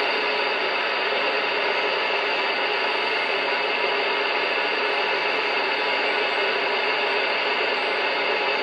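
Steady static hiss from a Galaxy DX86V 10-metre radio's speaker on single sideband, with no station coming through: open band noise between transmissions.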